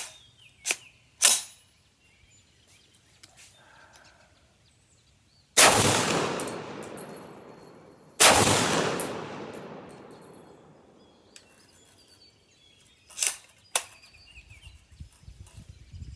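A few sharp metallic clacks, then two .50 Beowulf rifle shots about two and a half seconds apart, each trailing off in a long echoing rumble, then two more sharp metallic clicks near the end.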